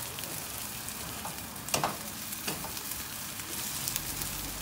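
Seafood pajeon sizzling as it fries in oil in a pan, a steady hiss. A metal spatula knocks and scrapes against the pan a few times, loudest a little under two seconds in.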